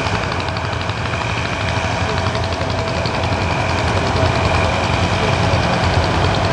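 Vintage tractor engine running steadily under load while pulling a plough, a low even rumble with a fine rapid ticking over it.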